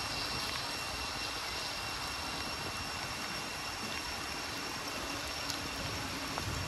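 Steady rain falling on forest trees and a wet road: an even, unbroken hiss, with a faint steady high tone running through it.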